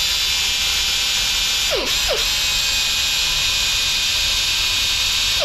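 Pneumatic die grinder running free at full speed with a steady, high-pitched whine. Two short falling tones come about two seconds in.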